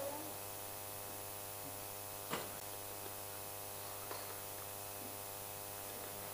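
Steady electrical mains hum with a buzzy edge in the microphone and sound system. One short faint sound comes about two and a half seconds in.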